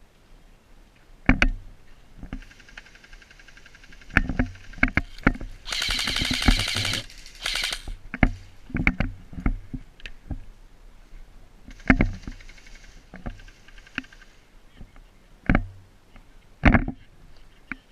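Airsoft gunfire: scattered single sharp shots and knocks, with a rapid full-auto burst lasting about a second near the middle. Two stretches of buzzy hiss run under the shots.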